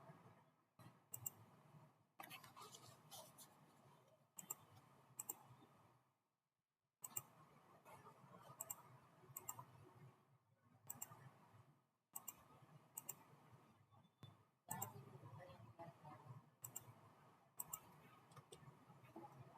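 Faint, scattered clicks of a computer mouse, often in quick pairs, over a low background hum.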